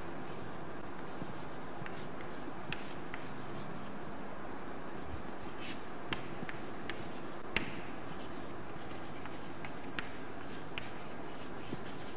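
Chalk writing on a chalkboard: soft scratching strokes with occasional sharp taps of the chalk on the board, the loudest a little past halfway, over a steady background hiss.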